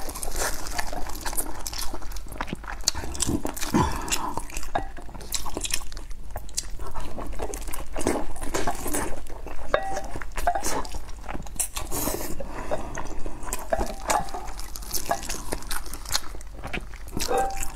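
Close-miked eating of a long stuffed sausage dipped in chili oil: biting and chewing with many wet mouth clicks and smacks, and now and then the squish of the sausage being dipped in the oil.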